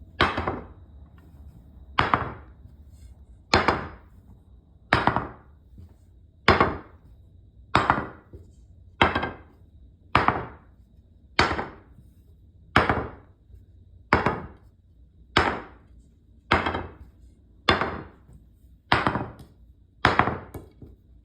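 Pool cues dropped butt-first against a table, each one landing with a sharp, hard wooden knock and a short ring, about sixteen times at a steady pace of roughly one drop every second and a half. This is a drop test: a good composite cue should knock like wood rather than clang like metal.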